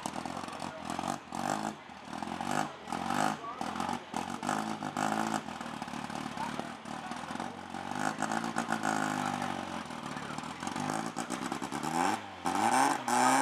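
Ford Anglia racing car's engine running with the throttle blipped again and again, the revs rising and falling in short bursts, then climbing steadily near the end.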